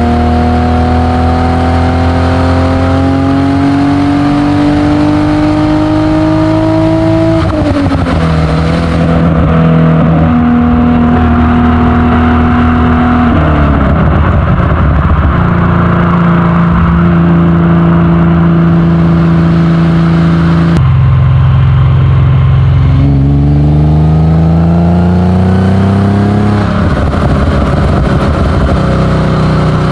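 Exhaust of a modified 3.0-litre Alfa Romeo GTV6 V6 under way. The engine pulls up slowly through the revs, drops back sharply at gear changes, holds steady in between, then pulls up again before dropping near the end.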